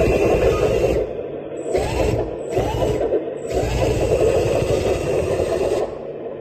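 Small electric motor of a 1/14-scale hydraulic RC bulldozer whirring in bursts, rising in pitch each time it spins up. It runs, stops about a second in, then starts three more times with short gaps before stopping near the end.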